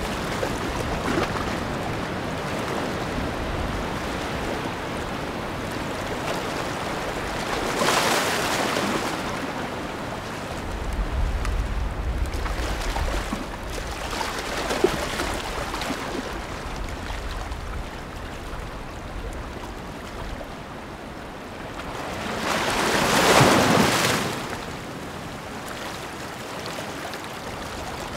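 Ocean surf: a continuous wash of waves, with two louder surges as waves break, one about 8 seconds in and a bigger one about 23 seconds in.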